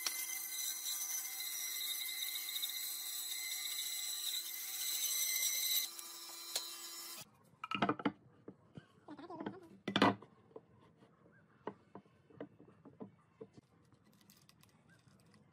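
Band saw cutting a thick wooden board: a steady machine whine with a low hum, easing about six seconds in and stopping suddenly about a second later. Then wooden blocks are set down and knocked together on a wooden bench, with two louder knocks about two seconds apart and lighter taps after.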